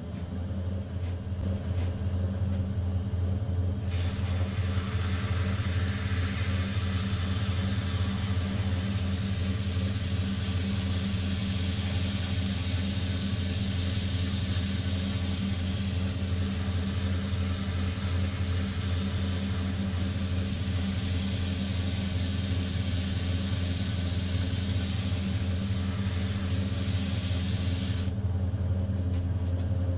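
Wood lathe running with a steady motor hum. About four seconds in, 220-grit sandpaper is held against the inside of the spinning open-segment turning, adding a steady hiss that stops a couple of seconds before the end.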